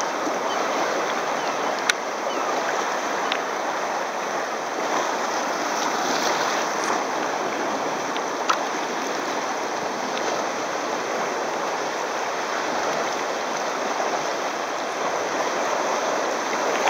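Choppy sea water splashing and sloshing close around a sea kayak, with waves washing over rocks: a steady rushing noise. Two sharp taps stand out, about two seconds in and again about eight and a half seconds in.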